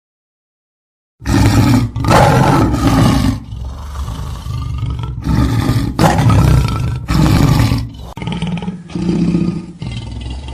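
Lion roaring: after a second of silence, a long series of deep, loud roars and grunts comes in quick succession, each lasting about a second, with short breaks between them.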